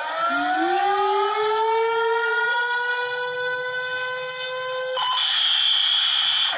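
Emergency siren winding up, its pitch rising and levelling off over about five seconds. About five seconds in, a steady shrill tone with a hiss abruptly takes over.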